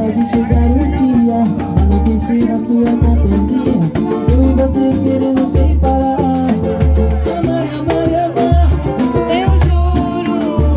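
Samba music without vocals. A deep bass drum beats about once a second, under pitched melody lines and a steady shaker-like rattle.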